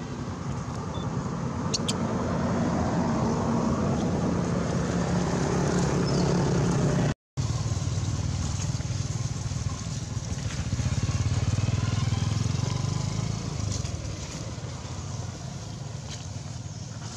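Motor vehicle engine rumbling past on a road, growing louder over several seconds and then, after a brief cut in the sound, swelling again and fading away.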